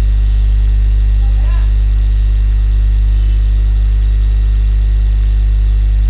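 Loud, steady electrical mains hum with a stack of higher hum tones above it, unchanging throughout.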